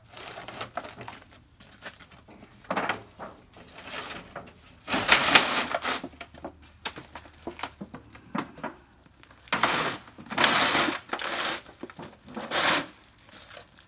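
A sheet of tin scraping and grinding over an icy gravel driveway in about six rough bursts, the longest about a second, with faint crunching between them, as a person kneeling on it tries to push it into a slide.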